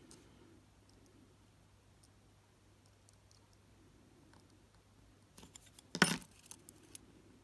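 Small clicks of steel tweezers and a tiny screw being worked at a watch module's circuit board, mostly faint, with a few quicker clicks and one louder sharp clatter about six seconds in.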